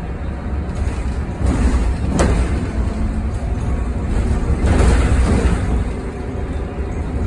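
Cabin noise inside a moving Yutong ZK6128BEVG battery-electric bus: a steady low road and running rumble, with a sharp knock about two seconds in and a louder noisy swell around five seconds in.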